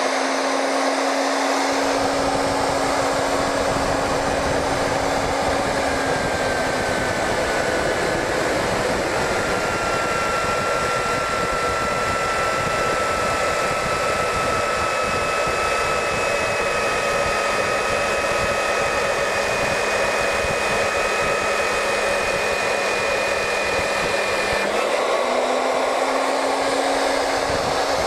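Merax FE-50 magnetic base drill's motor running as its annular cutter bores through a 10 mm steel plate, with a steady hum, a high whine and a dense cutting noise. About two seconds in the motor's hum drops in pitch as the cutter takes the load. Near the end the cutting noise stops and the hum rises back to free-running speed as the cutter comes through the plate.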